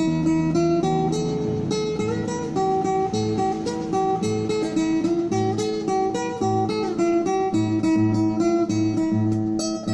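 Music led by plucked acoustic guitar, a quick run of notes over a bass note that repeats at a steady beat.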